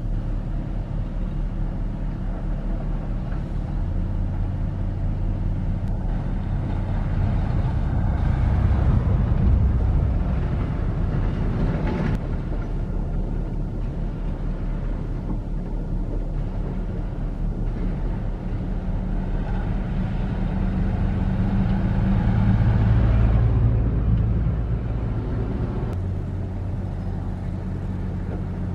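Heavy earthmoving machinery's diesel engine running steadily, working harder and louder twice before settling back to a steady run. A single short knock is heard about halfway.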